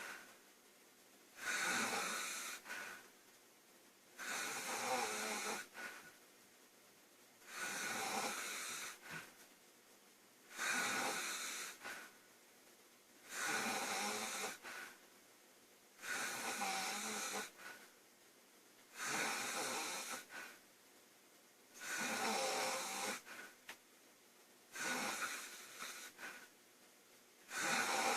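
A girl snoring loudly and regularly: one snore about every three seconds, each lasting about a second and a half, with quiet breaths between.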